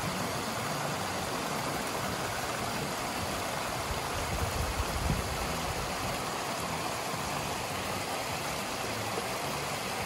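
Small cascade of water rushing steadily over rocks into a river, with a few brief low thumps about halfway through.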